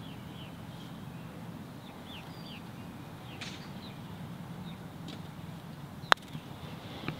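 A single sharp click of a putter striking a golf ball about six seconds in, over birds chirping in the background.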